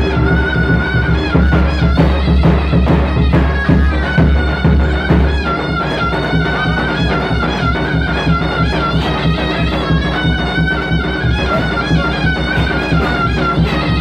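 Traditional Turkish folk music for the Bayburt bar dance: a wavering high wind-instrument melody over a steady low drone, with frequent drum beats.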